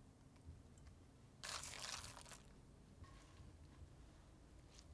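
Dressed lettuce leaves tossed with a wooden spoon in a glass bowl: a crisp, leafy rustle lasting about a second, starting a little over a second in. A few faint small handling ticks follow.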